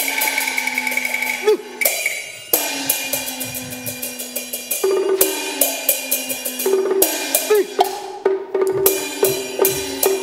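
Cantonese opera percussion (lo gu) playing a fast gong-and-cymbal pattern: rapid cymbal and clapper strokes over ringing gongs whose pitch bends after each strike, a lower gong tone giving way to a higher one about halfway through.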